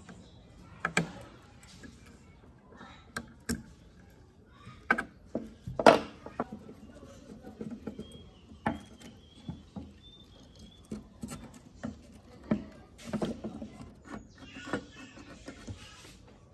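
Scattered clicks, scrapes and knocks of a screwdriver and loose metal and plastic parts as a rusty paper laminator is dismantled by hand, the loudest knock about six seconds in.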